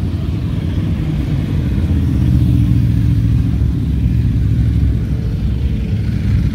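Motorcycles and cars passing slowly in a steady stream of traffic, their engines making a low, steady sound that grows louder about two seconds in as the bikes draw nearer.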